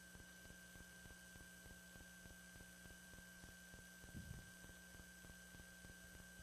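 Near silence: a faint steady electrical hum with a thin high tone over it, and one brief faint low bump about four seconds in.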